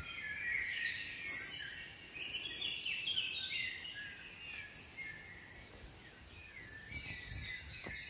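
Small woodland birds singing and calling, a run of quick, varied high chirps and short trills that thins out midway and picks up again near the end.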